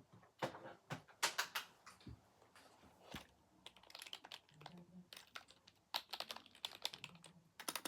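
Typing on a computer keyboard: quick runs of keystroke clicks with short pauses between them, the busiest run about a second in.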